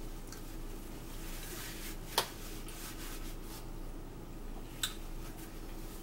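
Faint sounds of a sandwich being eaten and a paper napkin rubbed against a mouth, over a low steady hum, with two sharp clicks about two seconds and five seconds in.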